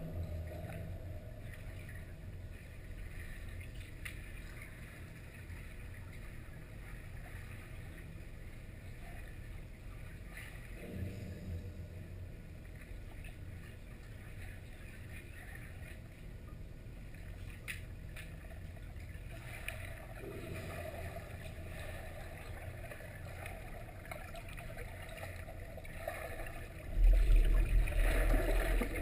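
Pool water heard underwater through a camera housing: a steady muffled low hum and hiss with a few faint knocks. Near the end, a much louder low churning rumble comes in as freedivers fin close past overhead.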